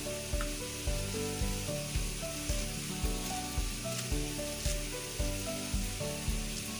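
Chopped onions sizzling as they fry in oil in a kadai, under background music with a steady beat.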